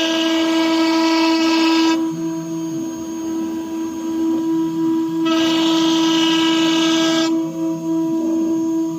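AKM6090C CNC router spindle running with a steady high whine. Twice, for about two seconds each, a louder, harsher whine with hiss rises over it, at the start and again about five seconds in.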